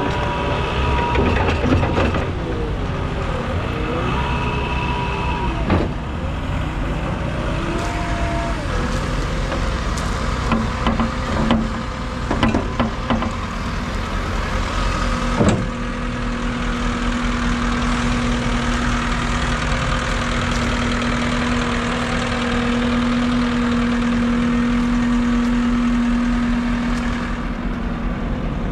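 Cat 226D3 skid steer with its Caterpillar C2.2 turbo diesel running. Its pitch wavers up and down for the first few seconds. A few clicks and knocks follow around the middle, then one sharp knock, after which a steady hum holds for about ten seconds.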